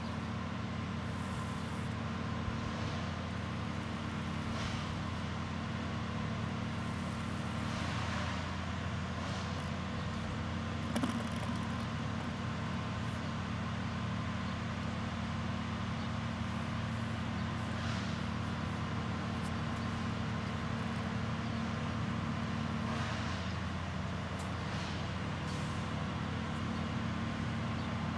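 A running engine's steady low hum, with a few faint brief scrapes over it.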